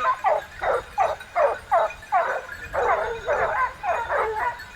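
A pack of hunting dogs barking, several voices overlapping in short calls that fall in pitch, about three a second.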